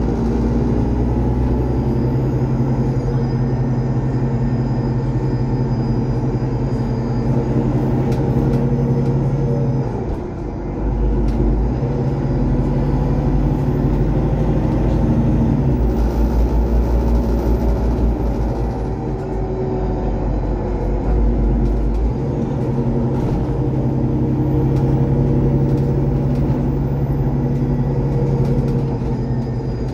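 City bus under way, heard from inside the passenger cabin: steady engine and road noise, the engine note dropping and changing a few times as the bus shifts and changes speed.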